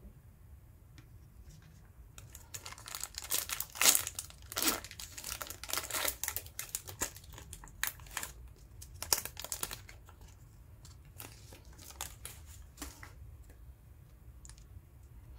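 Plastic trading-card pack wrapper being torn open and crinkled in a run of crackly bursts from about two to ten seconds in, then a few lighter rustles and clicks as the cards are slid through the hands.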